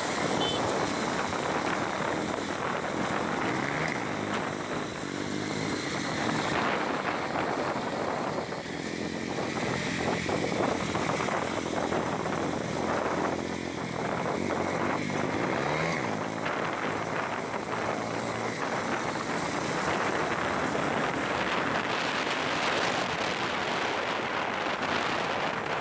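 Honda CB 300 motorcycle engine running under way. Its pitch climbs and drops again several times as it accelerates and shifts gears, over a steady rush of wind and road noise.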